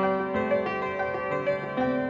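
Background instrumental music: a melody of held notes over a steady accompaniment.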